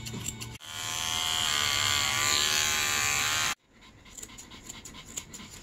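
Grooming scissors snipping a small dog's paw fur, then electric pet hair clippers buzzing steadily for about three seconds and stopping abruptly. Quieter scissor snips follow, trimming around the dog's face.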